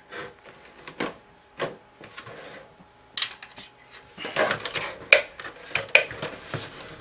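Irregular knocks and metallic clatter as the sheet-metal display panel and chassis of an opened LCD TV are lifted and shifted by hand. The clanks become denser and louder over the last few seconds.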